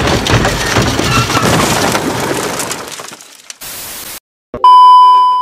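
Dense crackling, crunching noise that fades away over about three seconds, then a short burst of TV static hiss and a loud, steady test-pattern beep of the kind played with colour bars.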